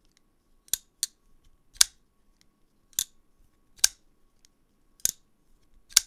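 Chaves Redencion 229 kickstop folding knife being flipped open and shut on its ceramic bearings. The heavy blade snaps into place with a sharp click, seven times, roughly once a second.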